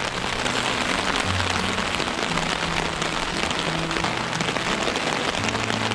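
Steady rain falling on the canopy of a fishing umbrella, a dense hiss of countless small drop hits. Low background music plays underneath.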